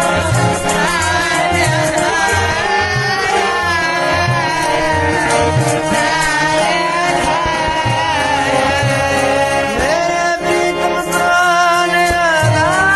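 Sikh kirtan: male voices singing a Gurbani shabad in a sliding, melismatic line over held harmonium tones, with a steady tabla rhythm underneath.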